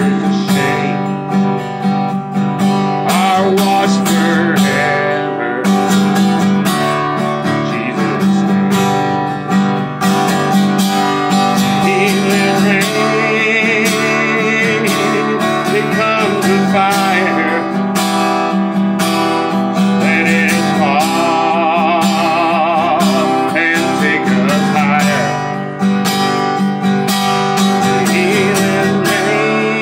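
A man singing, his voice wavering with vibrato on held notes, to a strummed acoustic guitar.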